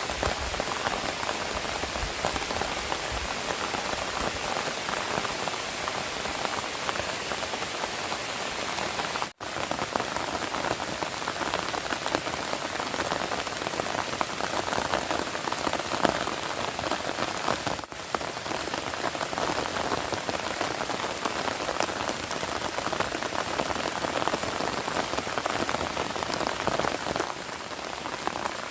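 Steady rain falling and pattering on surfaces, a constant dense hiss that cuts out for an instant twice, about nine and eighteen seconds in.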